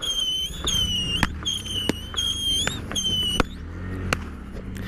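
Whistling fireworks shot one after another: about five high, slightly falling whistles, each ending in a sharp pop, in the first three and a half seconds. A motorcycle engine runs low underneath.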